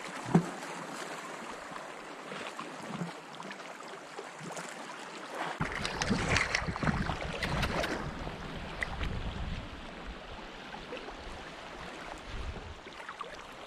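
Shallow seawater lapping and sloshing at the shore, with a sharp click about half a second in. From about the middle on, wind rumbles on the microphone, and a run of splashy strokes follows for a couple of seconds.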